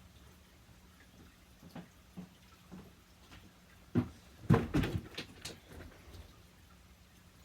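A few faint clicks, then a cluster of loud knocks and clatters about four to five seconds in, as of a door or cupboard being handled.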